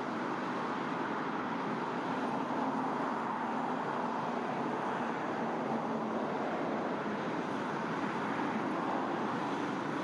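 Steady rushing of a shallow river running over stones, an even wash of water noise with no bird calls standing out.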